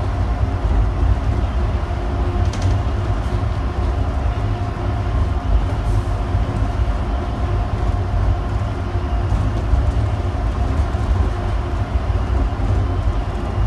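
Rubber-tyred Bombardier Innovia APM 300 people mover running along its concrete guideway, heard from inside the front of the car: a steady low rumble with a faint steady whine above it.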